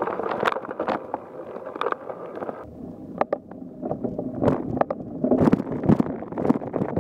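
Mountain bike riding over rough, bumpy ground, with wind on the microphone and a run of knocks and rattles from the bike that grows denser and louder from about five seconds in.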